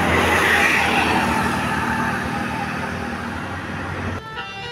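A bus passing close by: a rush of engine and tyre noise with a low engine hum that slowly fades. It cuts off abruptly near the end, giving way to a few faint steady tones.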